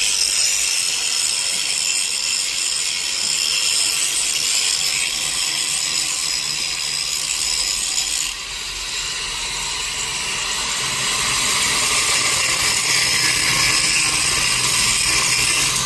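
Electric arc welding: a steady crackling, rasping hiss from the arc, with a brief drop about eight seconds in.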